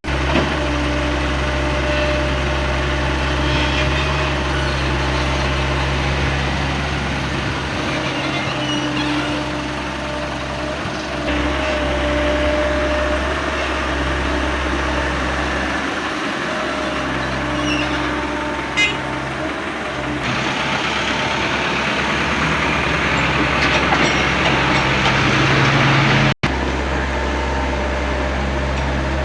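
Excavator's diesel engine running steadily, its hum rising and falling in strength every few seconds as the machine works. The sound drops out briefly near the end.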